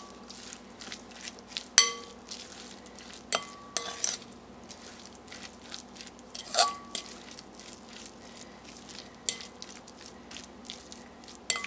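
Spoon stirring a thick chicken and mayonnaise filling in a glass bowl: soft continuous scraping, with a few ringing clinks where the spoon strikes the glass, the loudest about two seconds in and another near six and a half seconds.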